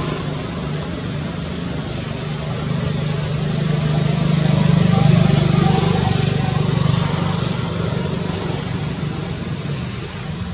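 Low engine rumble of a passing motor vehicle, swelling to its loudest about halfway through and then fading, over a steady high hiss.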